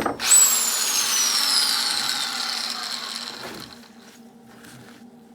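An electric power tool's motor comes up to speed all at once, then whines down in falling pitch as it spins down after switch-off, fading out over about three and a half seconds.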